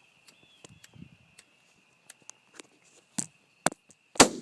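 A few small scattered clicks and knocks, then a single .243 rifle shot near the end, sharp and very loud, its report starting to rumble away.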